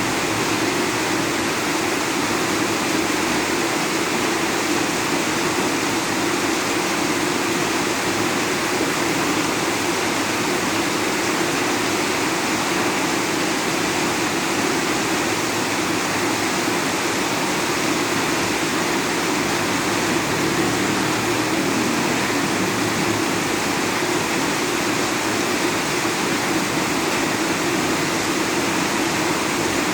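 Heavy rain falling steadily, an even, unbroken rushing hiss.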